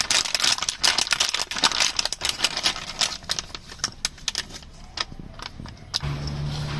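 Rapid, irregular crinkling and clicking of packaging as the new gear knob is handled and unwrapped, stopping about six seconds in; a steady low hum then starts.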